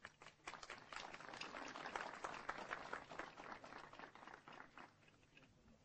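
A small group of people applauding: scattered claps that thicken about a second in, then thin out and die away near the end.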